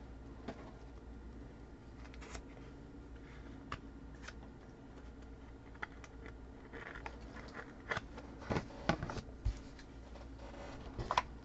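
Faint handling of trading cards on a table: scattered light clicks and rustles, with a few sharper taps about eight to nine seconds in and again near the end, over a low steady hum.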